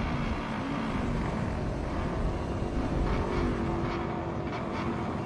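Motorcycle engines running as dirt bikes ride through street traffic, their pitch wavering slightly over a low rumble.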